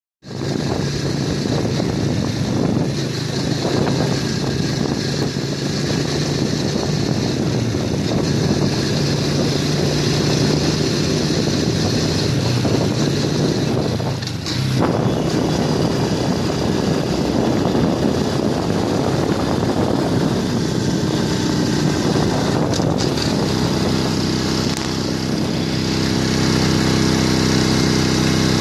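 Small underbone motorcycle (kapchai) engine running at a steady road speed, heard from on board with wind rushing over the microphone. The engine note dips briefly about halfway through, then picks up again and runs a little louder near the end.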